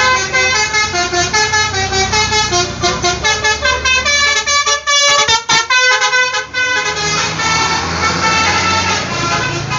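Indonesian 'telolet' bus horns, multi-tone musical horns, playing fast melodic runs of notes, broken into quick stuttering toots around the middle. A low bus engine hum runs beneath near the start and again in the last few seconds.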